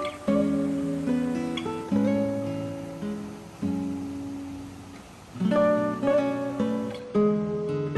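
Background music: acoustic guitar playing plucked notes and chords, each ringing out and fading, with a long held chord midway.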